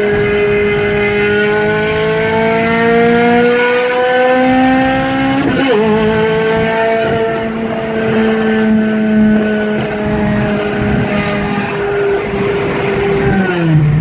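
Toyota Corolla XRS's 2ZZ-GE four-cylinder engine pulling hard under full acceleration: the engine note rises, breaks at a gear change about five and a half seconds in, then holds and falls away sharply near the end.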